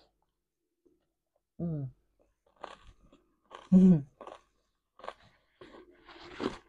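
Close-up chewing and crunching of food in the mouth, a run of short crackly sounds, with two brief voice sounds about a second and a half and nearly four seconds in.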